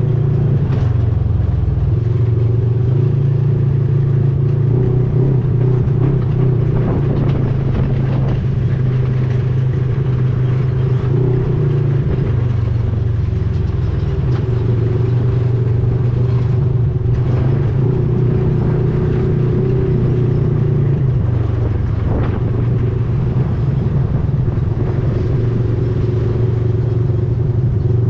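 Vehicle engine running steadily and loudly, heard from on board, its note shifting slightly in pitch a few times as the speed changes.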